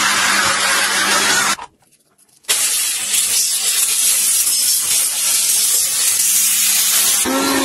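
Handheld steam cleaner jetting steam onto a gas hob burner: a steady loud hiss with a faint low hum, cutting out for about a second near two seconds in and then resuming. Near the end a different small motor with a steady whine takes over.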